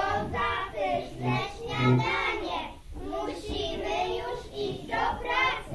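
Children singing.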